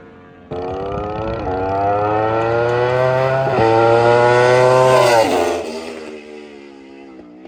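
V4 superbike on an open racing exhaust with no catalytic converter, accelerating hard past: the engine note climbs with two quick upshifts, then drops in pitch as the bike goes by and fades away.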